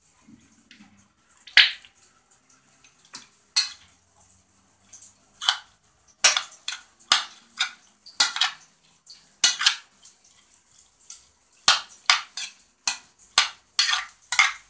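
A utensil stirring a chopped egg, cucumber and onion salad dressed with mayonnaise in an enamel bowl, clinking irregularly against the bowl's sides, the clinks coming faster and louder in the second half.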